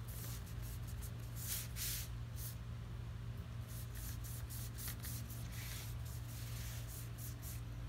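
Foam brush swishing across paper in a run of short strokes, laying on wet acrylic paint, over a steady low hum.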